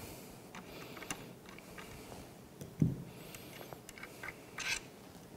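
Faint clicks and short scrapes of the tang screw being backed out and the percussion sidelock rifle being handled, with one dull thump about three seconds in and a brief scrape near the end.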